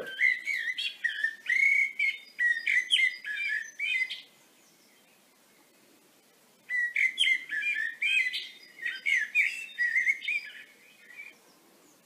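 Recorded song of a common blackbird played back from a phone: flute-like warbled phrases in two runs, with a silent pause of about two and a half seconds in the middle.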